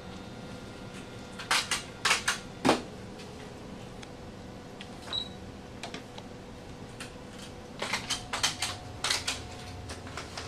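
Keys and buttons on an ultrasound machine's control panel clicked in two quick flurries, a few sharp taps about a second and a half in and a longer run of taps near the end, over the machine's faint steady hum.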